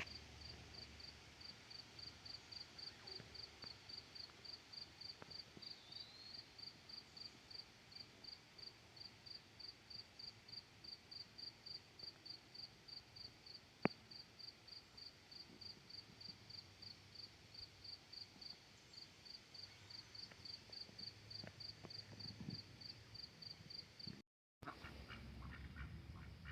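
A cricket chirping faintly and steadily, about three high chirps a second, with one sharp click about halfway through. After a brief break near the end, ducks begin quacking.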